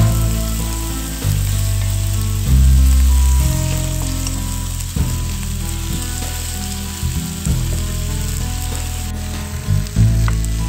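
Lamb pieces with onions sizzling as they sear in a frying pan, a steady hiss, under background music with low held bass notes that change every second or so.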